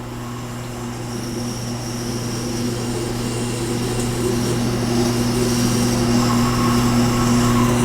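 Tormek T-8 sharpening machine running with a steady motor hum while a Leatherman multi-tool blade is ground against its SG250 grinding stone, a hissing grind over the hum that grows gradually louder.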